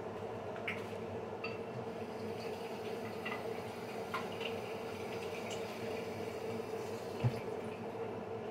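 Tap water running at a kitchen sink with light clicks and taps of handling, over a steady background hum; a small knock about seven seconds in.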